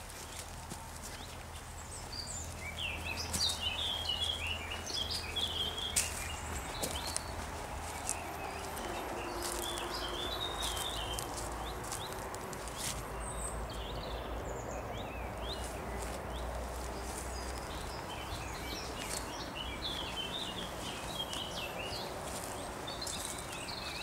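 Woodland songbirds chirping in several bursts of quick twittering, over a steady outdoor hiss, with a few footstep clicks on the path in the first several seconds.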